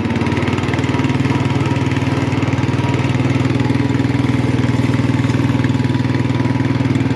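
1967 Sears Custom 6 garden tractor's engine running at a steady speed as the tractor drives along.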